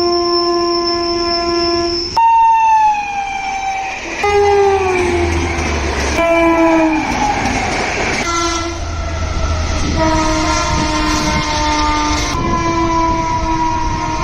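Indian Railways locomotive horns sounding one after another, changing abruptly every couple of seconds. Some blasts hold a steady chord, others slide down in pitch. Under some of them runs the low rumble of a moving train.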